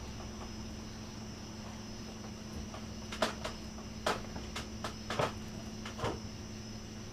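Steady background hum, then from about three seconds in, five or six short sharp metal clicks and knocks as the post vise's parts are handled and worked.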